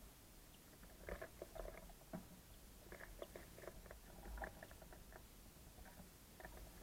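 Small birds pecking at seed and moving about on a bird feeder: faint, irregular clicks and taps that come in clusters, about a second in, around three to four and a half seconds, and again near the end.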